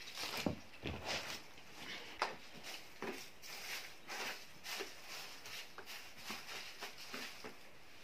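Hands scratching and crumbling potting soil in a plastic plant pot: irregular rustles and small clicks, with a few sharper ticks near the start and about two seconds in.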